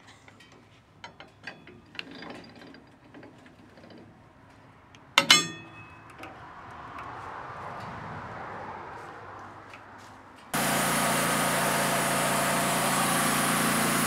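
A sharp metallic clank about five seconds in, then the Wood-Mizer LT15 Wide sawmill's gasoline engine comes on suddenly about ten seconds in and runs steadily and loudly.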